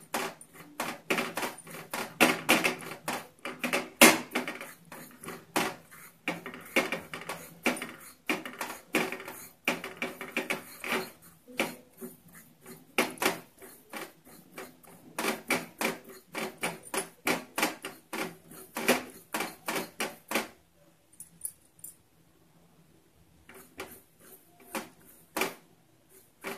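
Spatula scraping and clicking against a kadhai as poppy seeds are stirred and dry-roasted, in quick irregular strokes. The strokes stop for a few seconds about 20 s in, then start again in a few clicks near the end.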